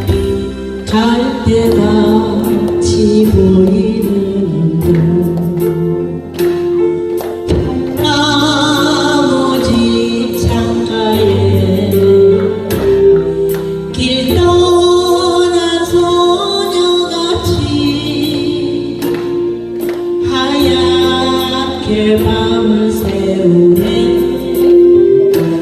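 Music: the accompaniment's introduction to a Korean ballad, a melody line over bass with a steady beat, before any lyrics are sung.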